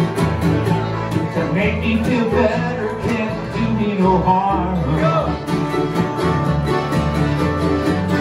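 Live bluegrass band playing: upright bass, mandolin, acoustic guitar, banjo and accordion together in a steady groove.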